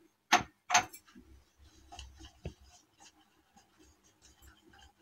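Two short clatters near the start, then faint, irregular scraping as thick semolina and sweet corn batter is stirred in a plastic mixing bowl, with a small click partway through.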